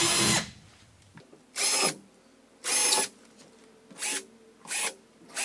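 Battery drill with a 5 mm bit drilling holes into the wall, in short bursts of whirring about once a second, each well under a second long.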